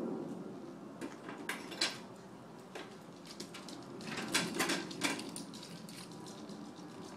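A baby mouthing and gnawing a gel-filled teething ring, giving scattered sharp clicks and clacks, which also fits the plastic rattle rings in her hand knocking together. The clicks come in a cluster about a second in and a denser one around four to five seconds in.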